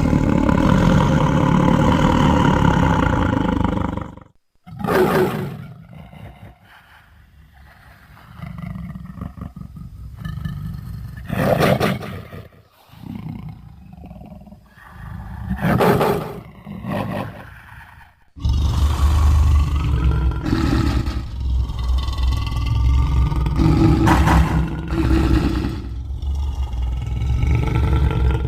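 Sound-effect dinosaur roars: one long roar, then a quieter stretch with several short calls, then a long, loud, deep-rumbling roar from about two-thirds of the way in.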